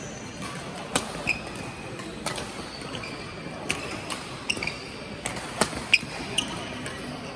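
Badminton rally: sharp cracks of rackets striking the shuttlecock every second or two, with short squeaks from sports shoes braking and turning on the court floor.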